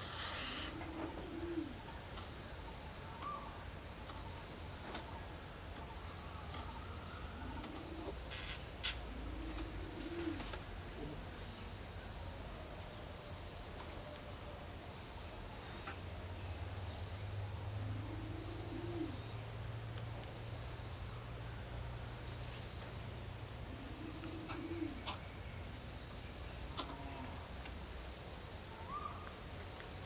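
A bird's low cooing hoots, single or paired, repeated every few seconds over a steady high insect shrill, with a few sharp clicks, the loudest about nine seconds in.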